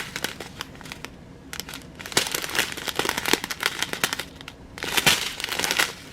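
Small plastic bags of diamond painting drills crinkling and rustling as they are handled, in irregular bursts of crackles.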